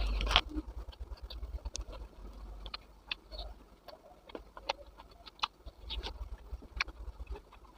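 Close-miked eating sounds of pork gravy and rice being chewed: irregular wet clicks, smacks and crackles with low thumps, loudest in a burst at the very start.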